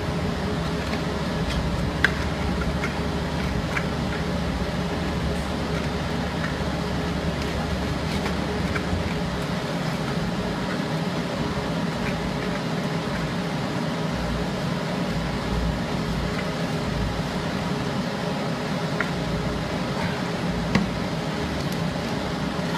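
Continuous induction foil sealing machine running: a steady hum of its cooling fan and conveyor, with a few light clicks. A deeper low hum breaks up about nine seconds in.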